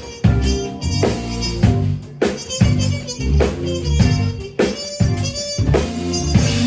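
Muted trumpet playing a blues melody over a backing track with a steady drum beat and bass.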